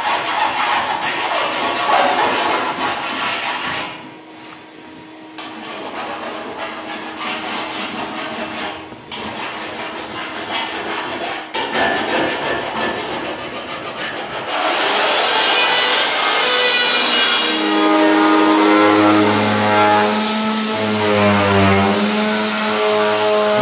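Jigsaw cutting through a brass sheet worktop, a fast rasping saw with brief breaks. From about 15 seconds in, an upright vacuum cleaner runs, its motor pitch wavering up and down.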